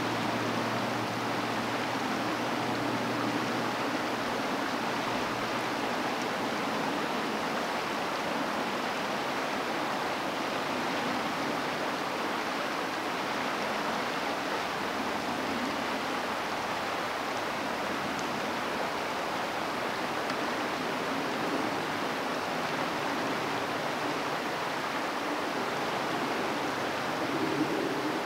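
Creek water flowing and rippling, a steady even rush that never breaks.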